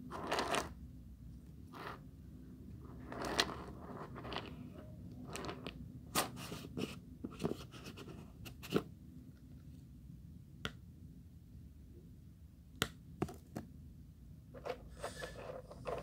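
Clear plastic food tub with a snap-on lid being handled and pried open: irregular plastic scrapes and rustles with several sharp clicks, over a low steady hum.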